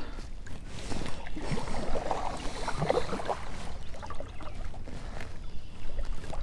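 Kayak paddle strokes: irregular splashes and knocks of the paddle in the water, over a low rumble of wind on the microphone.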